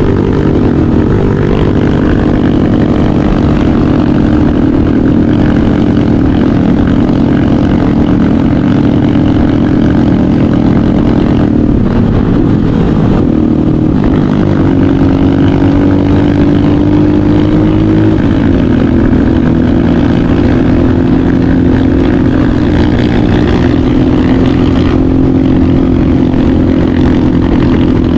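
Motorcycle engine running loud and steady while riding, its pitch dipping and wavering about halfway through and shifting again a few seconds later as the throttle changes.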